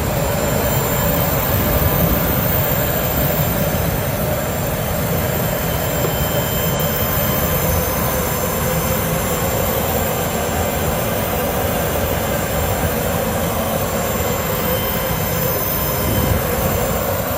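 Private jet's engines and airflow heard from inside the cabin: a steady, even rush of noise with faint steady whining tones, unchanging throughout.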